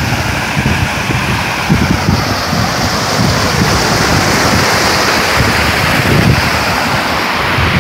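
Water rushing steadily over the rock spillway of a reservoir overflowing weakly, with wind buffeting the microphone in irregular low rumbles.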